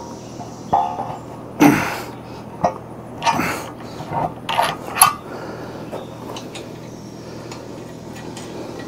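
A string of sharp metal clanks and knocks, about six in the first five seconds, from the heavy-duty auger and its mounting being hung on the mini excavator's arm. After that only a steady low hum.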